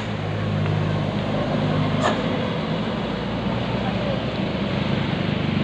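A bus engine running with a steady low hum under street noise, with a short click about two seconds in.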